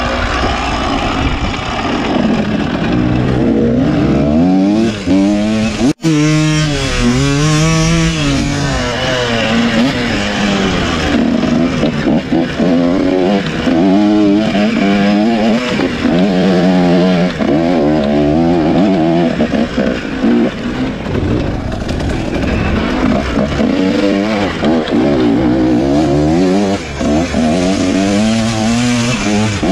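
Off-road dirt bike engine revving up and falling back again and again as the rider works the throttle over rough trail. The sound drops out sharply for an instant about six seconds in.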